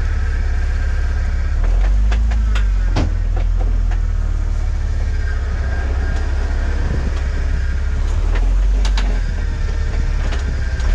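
Off-road 4x4's engine running low and steady as it crawls slowly over slickrock, a heavy rumble throughout. A few sharp knocks sound around two to three seconds in and again near nine seconds.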